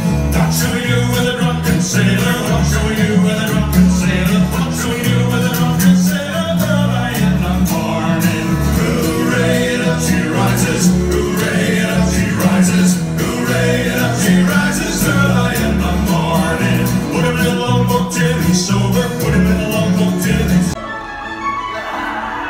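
Stage-show music with a steady beat and a heavy bass line. About two seconds before the end it breaks off abruptly into a quieter passage.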